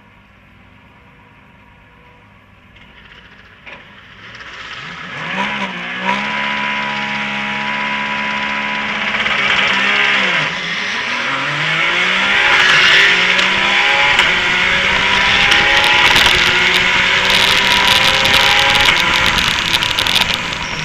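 Porsche 911 GT3 Cup race car's flat-six at a race start: fairly quiet for the first few seconds, then the revs climb and are held high from about six seconds in. About ten seconds in the revs dip briefly, and the engine then pulls through the gears in a run of rising sweeps, each broken off by a quick upshift, with loud rushing noise over it.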